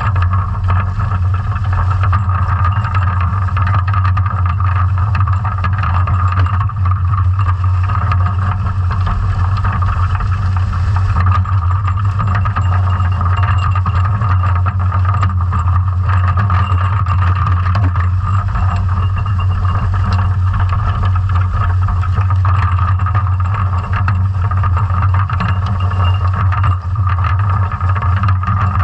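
Underwater noise of a sea scallop dredge under tow, heard from a camera on the dredge frame: a loud, steady low drone with a fainter higher hum and light scattered clicks.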